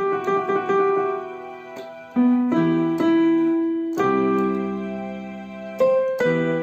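Electronic keyboard in a piano voice playing sustained chords, with a quick run of melody notes in the first second and new chords struck every second or two.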